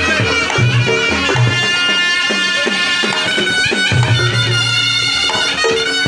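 Reog Ponorogo music: a slompret (Javanese shawm) plays a wavering, ornamented melody over the steady strokes of drums and gongs.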